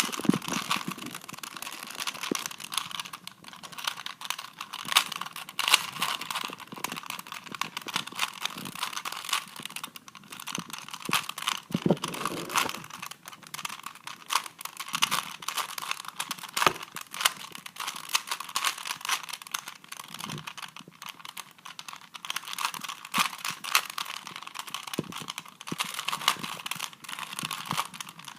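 A 3x3x3 Rubik's cube being solved by hand: an unbroken, irregular stream of plastic clicks and clacks as its layers are turned.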